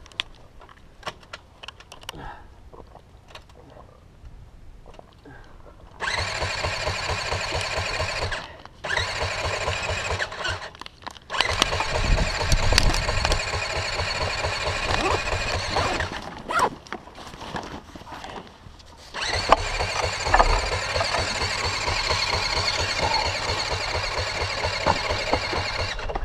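Electric starter of a 2014 Yamaha WR450F cranking the single-cylinder four-stroke engine: a high whine over fast, even pulses. It comes in repeated attempts of a few seconds each after a quiet start, the last one running to the end, as the rider tries to restart the hot engine.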